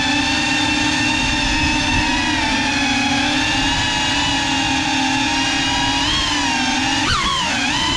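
GEPRC CineLog 35 cinewhoop's brushless motors and ducted propellers whining in flight, a steady buzzy tone with many overtones. The pitch dips briefly about six seconds in and swoops up and down near the end as the throttle changes.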